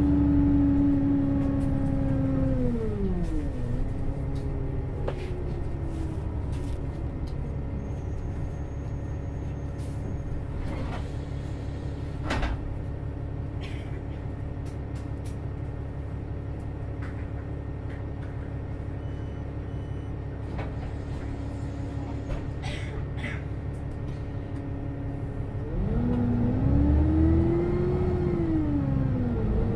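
Solaris Urbino 12 Hybrid city bus: the drive's whine falls in pitch as the bus slows, then the bus stands with a steady low hum. About 26 s in, the whine rises and dips again as the bus pulls away.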